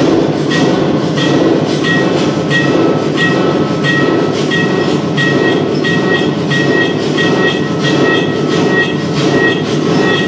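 Dance soundtrack: a steady, clattering, machine-like rhythm with a short high tone repeating evenly about every two-thirds of a second.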